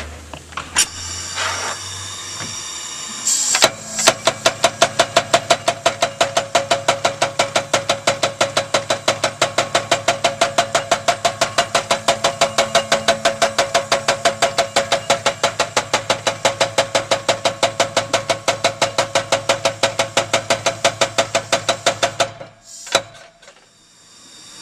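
Blu Max 110 pneumatic power hammer running, with a hiss of air at first, then a few seconds in striking a sheet of cast organ-pipe metal with fast, even blows, about five a second, that stop suddenly near the end. The hammering compacts the cast metal and smooths its rough cast surface.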